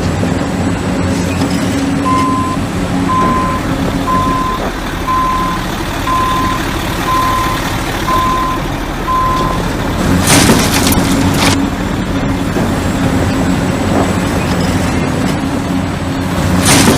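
Heavy truck or construction-machine diesel engine running steadily. A reversing alarm beeps eight times, about one beep a second. About ten seconds in there are loud bursts of air hiss like an air brake releasing, and another comes near the end.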